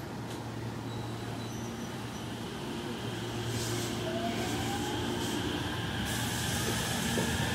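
JR West 227 series 'Red Wing' electric train pulling away from the platform: a steady low hum with a motor whine that rises in pitch from about four seconds in, growing louder as the train gathers speed.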